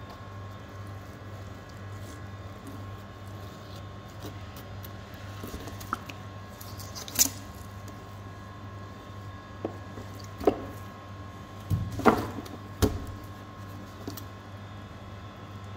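Knife work on a monkfish tail on a plastic cutting board: a handful of short, sharp knocks and scrapes of the blade and fish against the board, mostly in the second half. A steady mechanical hum runs underneath.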